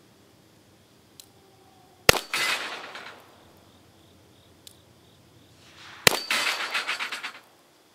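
Two shots from an Enfield No. 2 Mk I* .38/200 revolver, about four seconds apart, each followed by about a second of clanging as a hit steel plate is knocked down. The 200-grain bullets at about 600 fps drop the plates.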